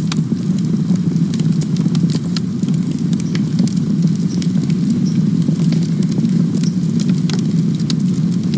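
Wood campfire burning: a steady low rumble with frequent sharp, irregular crackles and pops.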